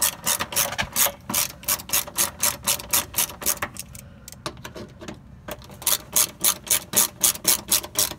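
Hand socket ratchet with a 10 mm socket clicking quickly and evenly, about five or six clicks a second, as it backs out the bolts of a plastic under-panel. The clicking stops for a moment about four seconds in, then goes on.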